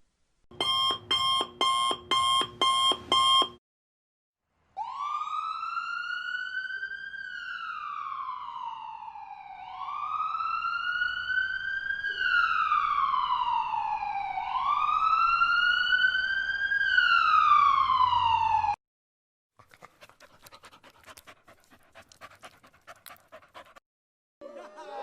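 A run of stock sound effects. Six short, quick, evenly spaced tones come first. A siren then wails, rising and falling slowly three times over about fourteen seconds. Faint crackling clicks follow near the end.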